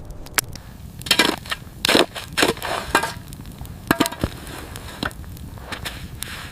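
A run of sharp cracks and crunches, something being crushed or snapped, thickest from about one to three seconds in and once more around four seconds.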